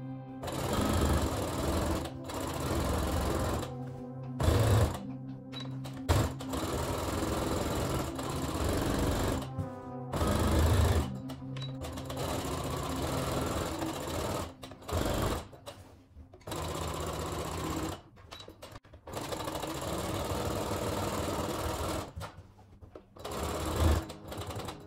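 Brother Innovis 15P computerised sewing machine running in short stitching runs that stop and start again many times: staystitching around a neckline.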